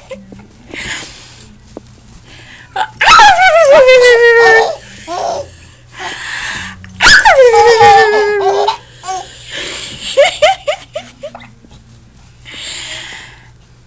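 Baby laughing: two long squealing belly laughs that slide down in pitch, about three and seven seconds in, with shorter giggles and breathy gasps between them.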